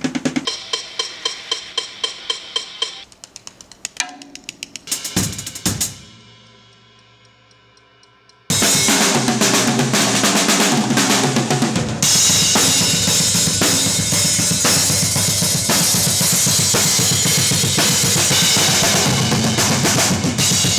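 Drum kit in a recording studio: a run of evenly spaced snare strikes, a couple of sharp hits that ring out and fade, then a sudden cut into fast, loud full-kit playing with bass drum and cymbals, busier still about twelve seconds in.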